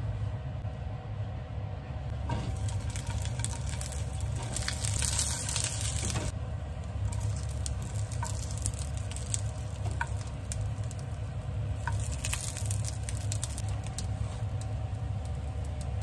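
Sausages sizzling and spattering in hot oil in a frying pan, the crackle swelling twice, over a steady low hum.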